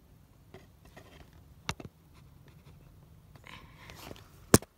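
Faint scuffing with two sharp knocks, one about two seconds in and a louder one near the end, from someone moving and handling the camera in a small stone tunnel.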